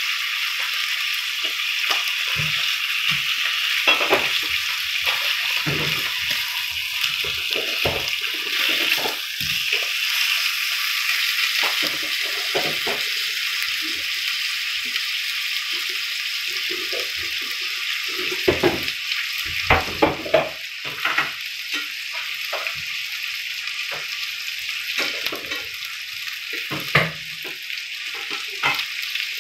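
Striploin steak pieces sizzling in hot oil in a frying pan: a steady hiss with frequent crackles and pops of spattering fat, a run of louder pops about two-thirds of the way through.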